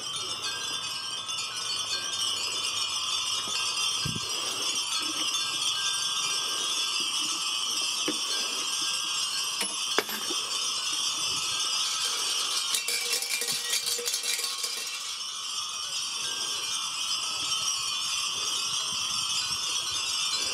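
Many Japanese wind chimes (fūrin) tinkling on and on. A sharp click comes about halfway through, then a few seconds of rattling jingle.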